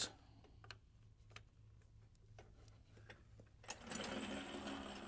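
A few faint clicks as the winch remote is plugged in. Then, about three and a half seconds in, the Warn electric winch's motor starts and runs steadily through its gears, spooling the cable.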